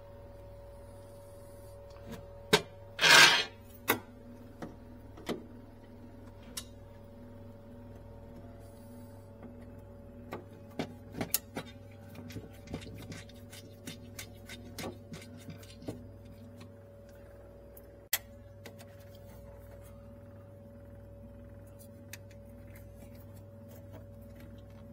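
Scattered clicks and knocks of tools and metal parts being handled inside a refrigerator cabinet, over a steady electrical hum; the loudest is a brief harsh scrape about three seconds in.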